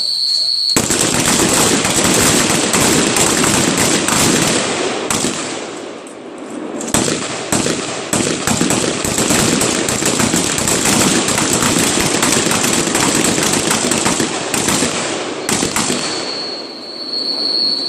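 Rapid rifle gunfire in long quick strings of shots, easing briefly about six seconds in and again near the end.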